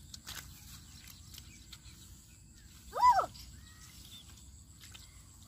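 A single short, high call that rises and then falls in pitch, about three seconds in, over faint outdoor background noise.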